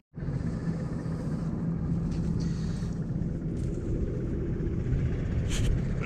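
New Holland tractor's diesel engine idling steadily.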